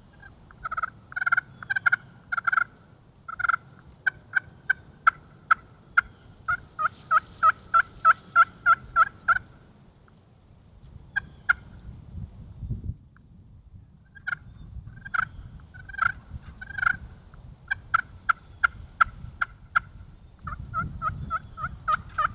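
Turkey yelping: long series of short, sharp, evenly spaced notes, about three a second. There is a pause about ten seconds in, and the notes pick up faster near the end. A low rumble runs underneath.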